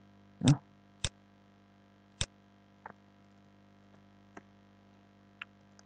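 Sharp, separate clicks of a computer mouse and keyboard while editing code, about six in all, irregularly spaced. The first two are the loudest and the later ones grow fainter. A faint steady electrical hum runs underneath.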